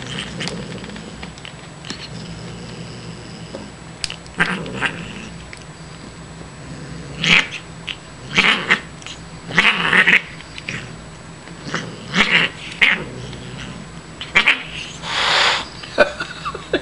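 Siamese cat yowling in a series of short, loud calls while playing, most of them in the second half, the last a little longer.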